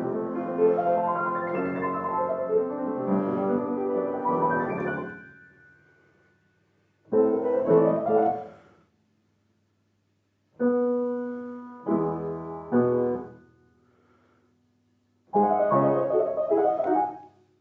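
Yamaha Disklavier MX-95 upright piano playing by itself. A piece fades out about five seconds in, then three short passages of a couple of seconds each start and break off with silence between, as playback is started and stopped from the freshly repaired remote control.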